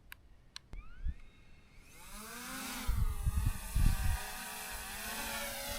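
Small camera drone starting up: a few clicks, its motors whining up in pitch, then a steady high buzz of spinning propellers as it lifts off, with low rumbles of air hitting the microphone about three seconds in.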